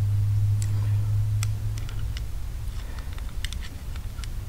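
Scattered light metallic clicks and ticks from handling a billet oil pump and its gears, with a pump oil can being worked onto the drive gear near the end. A low steady hum sounds under the clicks for the first second and a half or so, then fades.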